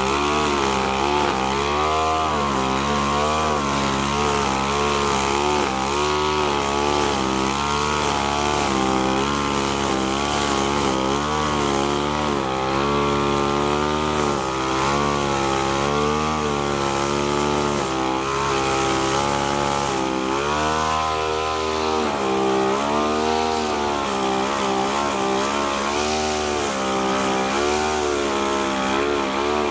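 Backpack two-stroke brush cutter running at high revs, its engine pitch dipping and rising again and again as the line or blade bites into the grass.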